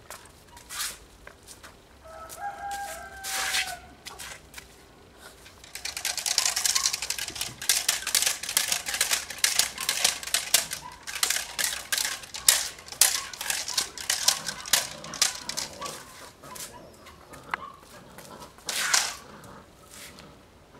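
A rag whipped and shaken while a Belgian Malinois puppy lunges and tugs at it on concrete. The flapping and scuffling make a dense run of quick slaps and scrapes through the middle, with another burst near the end. A rooster crows briefly in the background about two seconds in.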